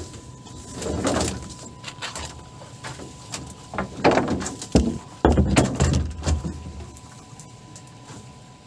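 Handling noise in a small boat: clunks of feet and gear against the hull, with scraping and rustling of branches and hoop netting. It comes in bursts about a second in and again from about four to six seconds, then settles near the end.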